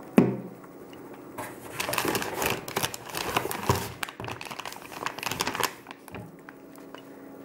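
A knock just after the start, then a plastic snack pouch crinkling and rustling for several seconds as it is handled, dying away near the end.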